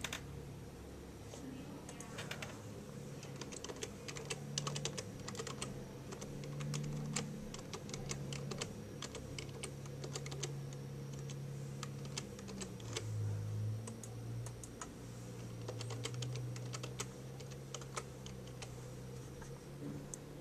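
Computer keyboard typing: runs of irregular key clicks as an email address and password are typed into a login form, over a low steady hum.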